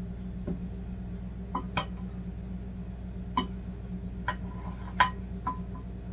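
Red nonstick forged-aluminum pots and pans knocking and clinking together as they are set down and stacked on a table. There are several light clinks, the loudest about five seconds in, one ringing briefly, over a steady low hum.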